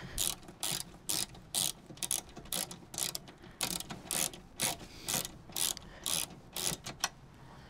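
Hand socket ratchet with a 13 mm socket clicking as it undoes a seat-base nut, about two short ratcheting strokes a second, stopping near the end.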